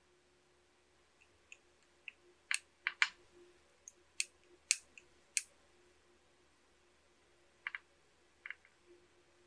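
Small sharp clicks and taps from a screwdriver and wires being worked into the screw terminals of a DC-DC step-up converter board. There is a run of irregular clicks for a few seconds, then a few more near the end.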